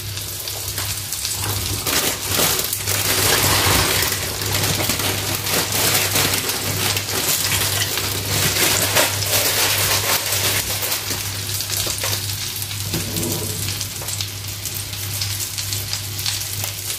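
Breaded chicken fillets sizzling and crackling as they shallow-fry in hot oil in a stainless-steel frying pan, a steady spitting hiss that swells a little a few seconds in.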